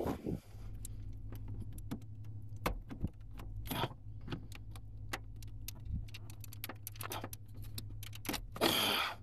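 Hand rummaging under a pickup truck's dashboard and in its footwell: scattered light clicks and rattles over a steady low hum, with a louder scraping rustle near the end.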